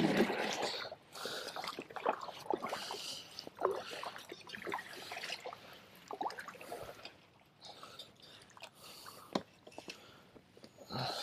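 Kayak paddle dipping into shallow marsh water: irregular splashes and drips from the blade, thinning out in the second half.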